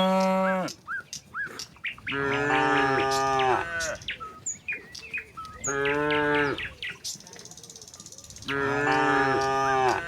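Cattle mooing, one long call after another about every three seconds, with small birds chirping in the gaps between the calls.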